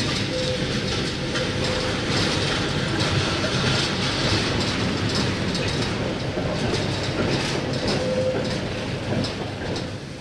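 Tatra T6A5 tram running along the track between stops: a steady rumble of steel wheels on rail with repeated clicks, and a faint tone that comes and goes. It gets a little quieter near the end.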